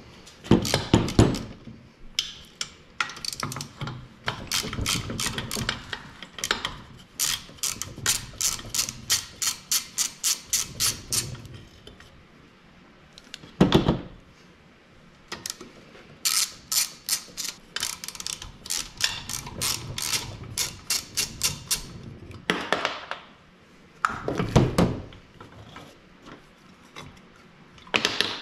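Hand ratchet and socket clicking in long, rapid runs while backing off the exhaust manifold nuts, with a few single knocks between the runs.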